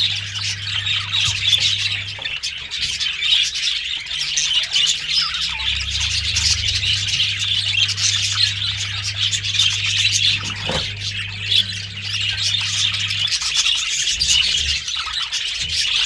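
Budgerigars chattering and chirping without pause in a dense, high-pitched warble. A low steady hum sits underneath; it drops out about two seconds in and returns for a while from about six seconds.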